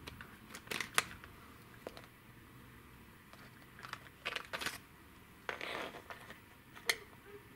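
Hard plastic toy cars clicking and knocking against a plastic toy car-carrier truck as they are handled, with a short scrape of plastic wheels on a wooden floor a little after the middle.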